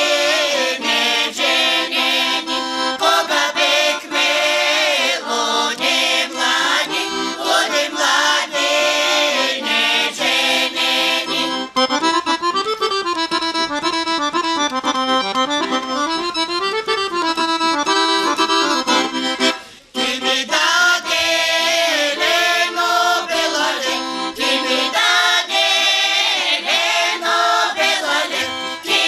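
Accordion playing a folk tune, with a stretch of fast running notes in the middle and a brief break about twenty seconds in before the melody picks up again.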